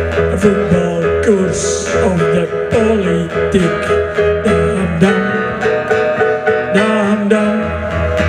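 Live acoustic song: nylon-string acoustic guitar strummed under a man's singing voice, over a steady low bass.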